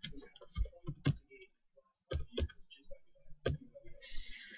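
Irregular light clicks and taps from hands handling cards and small objects on a desktop, with a short hiss about four seconds in.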